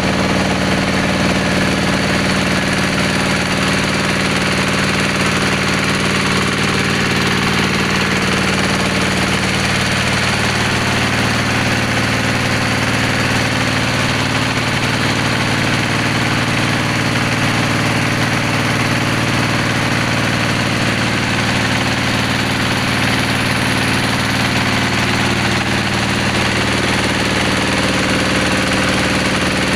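Engine of a bore-well drilling machine running steadily at an even speed.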